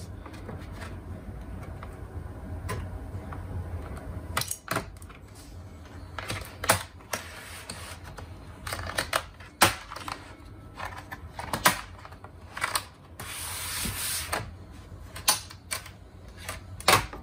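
Laptop bottom cover being pried off: irregular sharp clicks as its retaining clips snap free, with stretches of scraping and rubbing as the panel is worked loose.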